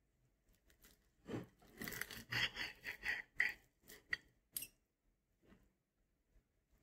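Knife and fork cutting through a thin, crisp-fried potato rösti: a run of crunching and crackling from the crisp crust, with sharp clicks of the cutlery, between about one and five seconds in.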